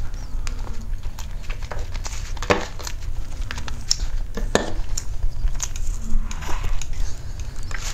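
Close-miked mukbang eating sounds: scattered clicks and crinkles of a metal spoon scraping and scooping a plastic tray of soft cream cake, with two louder scrapes about two and a half and four and a half seconds in, and soft mouth sounds as the cake is eaten.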